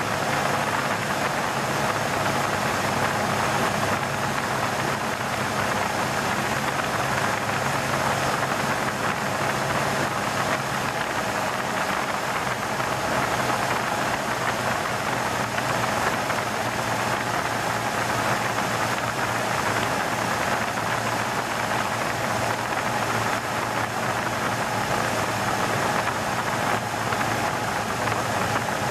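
Cessna 182 Skylane's piston engine and propeller droning steadily, heard inside the cockpit with rushing air noise over it. The engine note drops slightly in pitch about eleven seconds in.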